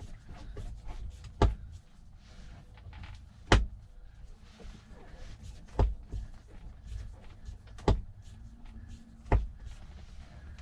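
Five sharp clicks or knocks about two seconds apart, from hand tools working on a truck cab's shifter boot, over a low, steady rumble.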